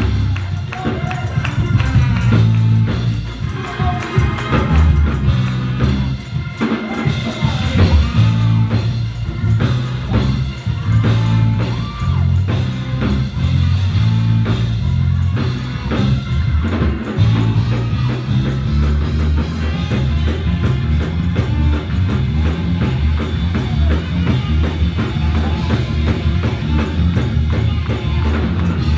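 Live church worship music with drum kit, bass and tambourine, and some singing over it in the first half.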